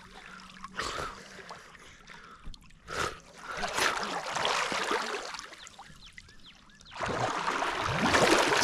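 River water lapping and sloshing around a swimmer's head at the surface, with a few small splashes. About seven seconds in, loud churning splashes start and keep on.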